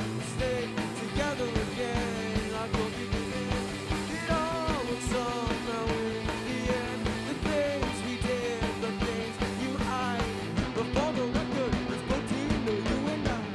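A live rock band playing: two electric guitars, an electric bass and a drum kit, with a steady, busy beat. The drums stop right at the end, leaving a held chord ringing.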